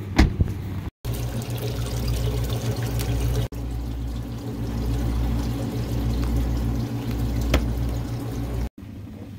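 Water pouring and splashing into a bait bucket over a steady low hum from bait-tank pumps. A single sharp thump comes just after the start, and a click near the end.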